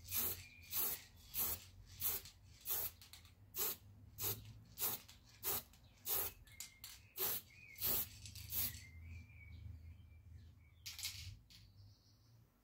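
Aerosol spray can of black paint hissing in short, quick bursts, about one and a half a second, onto a metal bayonet scabbard. The bursts stop about nine seconds in, and one more hiss comes near the end.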